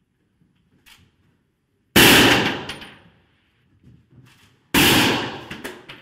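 Two shots from a Kalashnikov sniper rifle, about two and three-quarter seconds apart. Each is a loud, sharp crack that rings on and fades over about a second.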